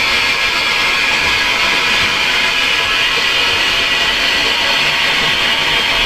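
Steady, loud hissing noise that holds even and unbroken throughout, with no distinct events.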